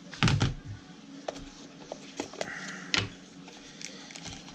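A phone's retail box and packaging being handled: a thump a quarter second in, then scattered light clicks and taps, and a brief scraping slide about two and a half seconds in.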